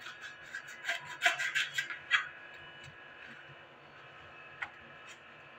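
Kitchen knife cutting through eggplant and scraping and tapping on a plastic cutting board: a quick run of cuts in the first two seconds, then quieter, with one sharp tap near the end.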